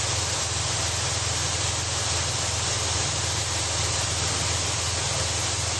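Steady hiss over a constant low hum from the coupled KTR8000 diesel railcars idling at a standstill.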